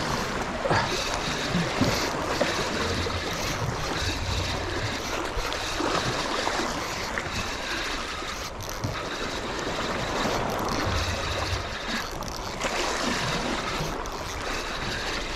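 Sea waves washing and splashing against the shore, with wind buffeting the microphone.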